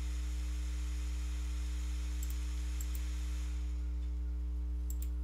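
Steady electrical mains hum with a light hiss on the recording, with a few faint clicks about two and three seconds in and again near the end.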